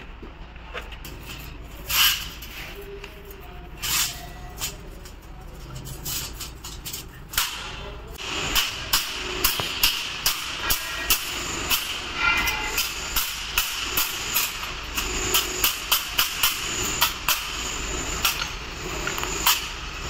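Claw hammer striking galvanised steel cable tray, bending the cut collar tabs over to form a T junction. A few separate knocks at first, then from about eight seconds a steady run of sharp metal-on-metal strikes, roughly two a second.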